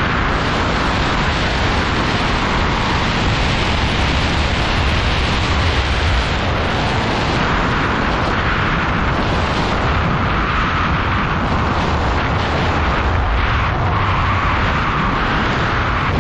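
Freefall airflow rushing over the camera flyer's microphone at skydiving fall speed, giving loud, steady wind noise.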